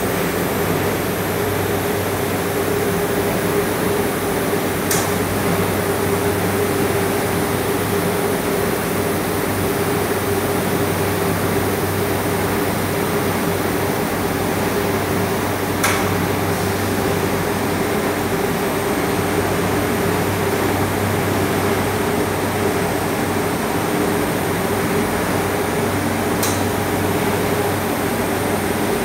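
Steady hum and whir of the anodizing shop's running fans and cooling machinery, with a low hum under a steady mid-pitched tone. Three faint short ticks are spread through it.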